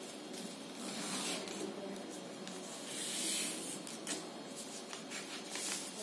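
A sheet of paper rustling and rubbing as hands fold it and press along the crease, with a louder swish about three seconds in and a light tap just after four seconds.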